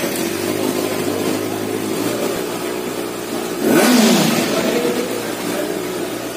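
Kawasaki Ninja ZX-6R's 600cc-class inline-four engine idling, with one quick blip of the throttle a little past halfway that sweeps up in pitch and straight back down.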